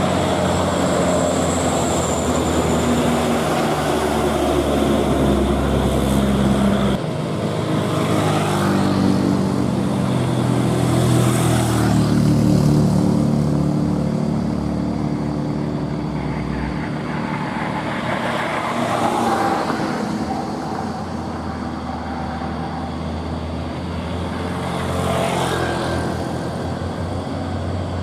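Heavy truck engine running, its note shifting up and down in pitch, amid road traffic; the low hum drops off abruptly about seven seconds in.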